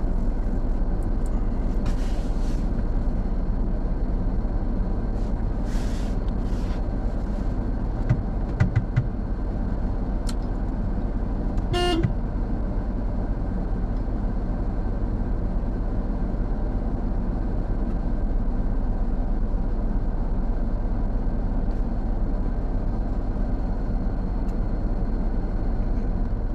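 Steady engine and road rumble of a car driving, with a couple of thumps about nine seconds in and one short horn toot about twelve seconds in.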